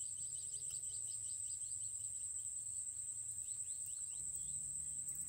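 A steady, high-pitched insect drone, with runs of rapid short falling chirps coming and going over it.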